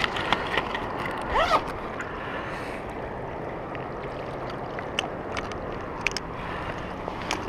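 Shallow water lapping steadily, with scattered small clicks and splashes as a caught smallmouth bass is handled on a lip-grip. A brief squeak rises and falls about a second and a half in.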